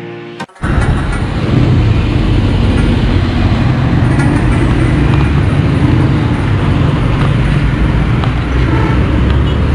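Busy street traffic: the steady mixed sound of passing cars, buses and motorbikes, with a heavy low rumble.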